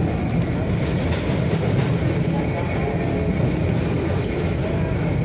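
Vintage R33/R38 New York subway train running along the track, a steady loud rumble of wheels on rail, heard from on board.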